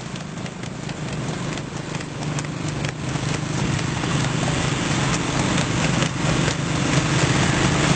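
A motorcycle engine runs steadily alongside a harness horse pulling a racing cart on a road, with the horse's hoofbeats striking over the engine drone. The whole sound grows steadily louder.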